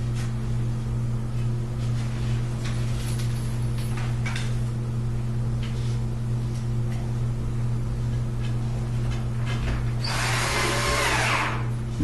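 Power drill running in one burst of about a second and a half near the end, over a steady low hum, with scattered light clicks and knocks before it.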